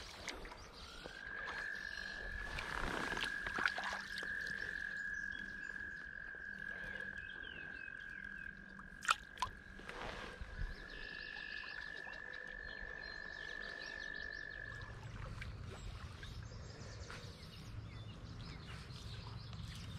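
A frog calling with one long, steady high trill that lasts about fourteen seconds, broken briefly about ten seconds in. A few sharp clicks sound around nine seconds in.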